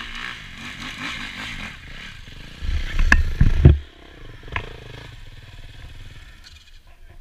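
Dirt bike engine idling, then a burst of heavy rumbling knocks and sharp clicks as a gloved hand and goggles handle the camera right at the microphone, the loudest sound here. After it, quieter, with one more click.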